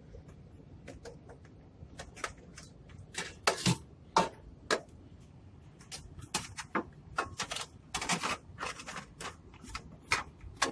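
Irregular metallic clanks, clicks and scrapes as the sheet-metal compressor cover panel of an air-conditioning condensing unit is handled and fitted into place.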